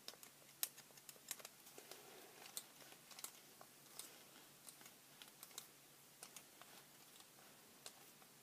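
Faint, irregular light clicks and taps of small plastic kit parts and screws being handled and fitted, a few each second, thinning out in the second half.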